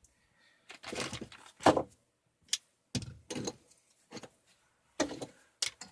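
Irregular clunks, clicks and rustling from objects being handled during plumbing work. The loudest is a sharp knock about a second and a half in.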